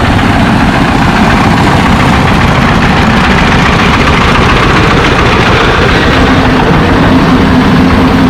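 Motor vehicle on the move: loud, steady engine and road noise, with a steady low hum joining about six seconds in.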